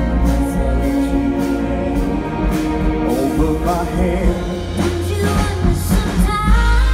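Live symphony orchestra accompanying pop singers, with voices singing over the orchestra and a wavering held note about halfway through and again near the end.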